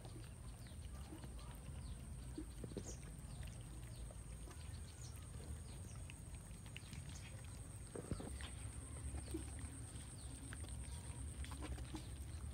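A crowd of cats eating rice from metal trays: many small irregular clicks and smacks of chewing and licking, with now and then a tap on the tray. A faint steady high whine runs underneath.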